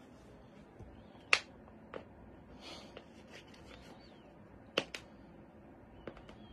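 A few sharp clicks and taps over faint room noise, the loudest about a second and a half in and a quick pair near the end, as a cat grapples and kicks at a plush fish toy.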